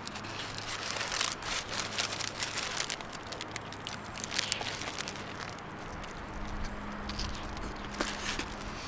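Aluminium foil wrapper crinkling in the hands while a kebab is bitten into and chewed, in irregular crackly bursts.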